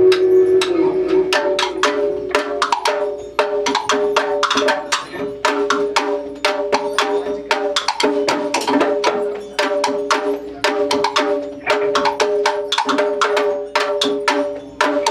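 Live experimental band music: a fast, busy run of sharp-attacked pitched notes, several a second, over a few steady sustained tones.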